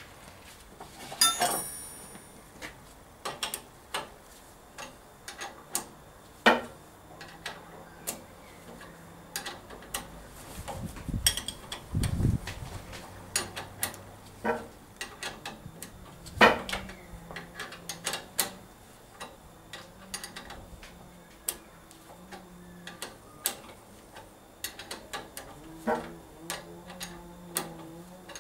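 Irregular clinks, taps and knocks of small metal parts and tools being handled during assembly of Triumph Trident T160 motorcycle parts. There is a ringing metallic clink about a second in and a short low thump near the middle.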